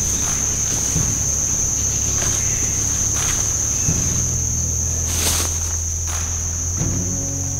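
Steady high-pitched drone of a summer insect chorus, with footsteps swishing through leaf litter and brushing undergrowth now and then.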